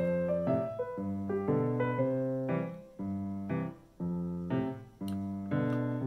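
Background piano music: a light tune of chords and single notes at an even pace.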